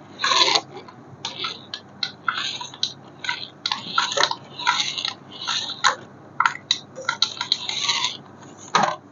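Irregular rustling, crinkling and clicking of plastic packaging and toy parts being handled, in short uneven bursts.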